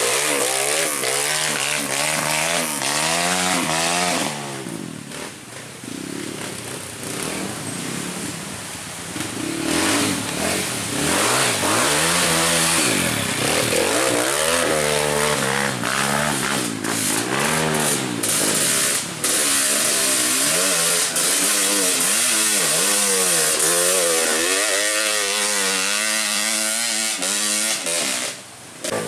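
Trail motorcycle engines revving up and down over and over, the throttle opened and closed in quick succession. The sound drops back for a few seconds about five seconds in, then picks up again.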